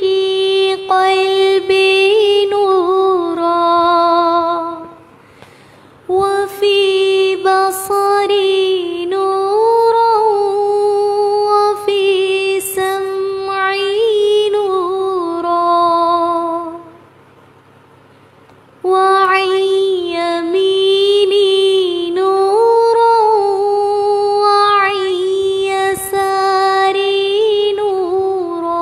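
A single high voice singing a du'a (Islamic supplication) melodically, in long drawn-out phrases with ornamented, wavering notes. It pauses twice, about 5 and 17 seconds in.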